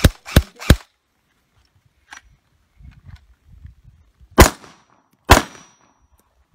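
Gunfire: a submachine gun fires three shots in quick succession, then a semi-automatic pistol fires two single shots just under a second apart.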